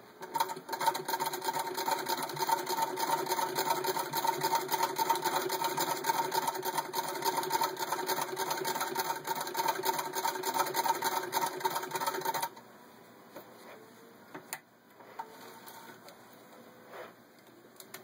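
1901 Singer Model 27 vibrating-shuttle sewing machine, its balance wheel spun by hand, stitching through six layers of denim: a fast, even mechanical clatter for about twelve seconds that stops abruptly. A few light clicks follow.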